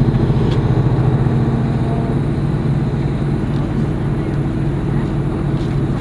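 Bus engine running steadily with tyre and road noise, heard from inside the passenger cabin while the bus is under way; a low, even hum.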